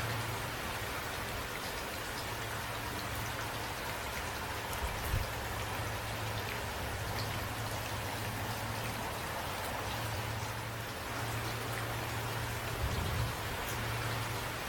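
Steady rain falling, with individual drops ticking on a surface over an even hiss. A low hum runs underneath, and two brief low thuds come about five seconds in and near the end.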